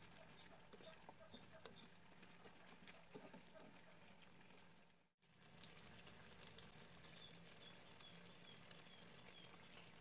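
Chicken, potatoes and carrots frying faintly in a wok, a soft steady sizzle with scattered small crackles and spatula clicks, more of them in the first few seconds. The sound drops out briefly about five seconds in.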